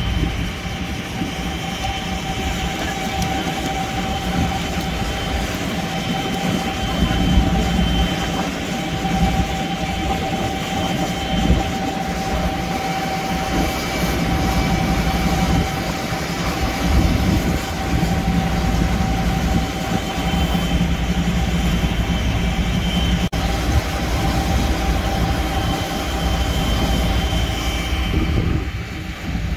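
Heavy diesel machinery running steadily: a low engine rumble with a steady high whine over it, easing off near the end.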